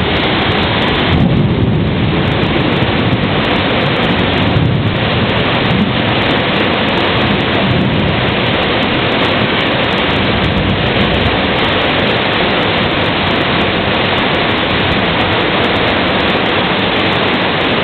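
Heavy rain pouring, a loud, steady hiss, with a few brief low rumbles in the first half.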